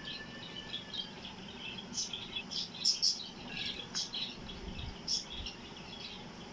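Small birds chirping in short, scattered calls, busiest from about two seconds in.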